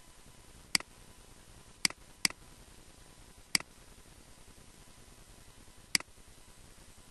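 Five sharp computer mouse clicks, two of them close together, against a faint steady hiss.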